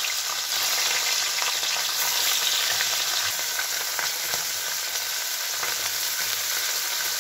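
Hot mustard oil sizzling steadily with small pops as a batch of small puti fish (pool barb) fries in a kadai, more fish going into the oil.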